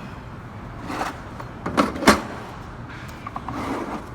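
Snap-on toolbox drawer and the tools in it being handled: a few short metal clunks, the loudest about two seconds in, then a few light clicks near the end.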